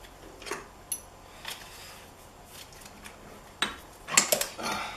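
Scattered metallic clinks and knocks as the crankshaft of a Yamaha YZ125 two-stroke engine is worked out of its split crankcase, with a short metallic ping about a second in and a loud cluster of clatter near the end. The parts come apart easily because they are coated in assembly lube.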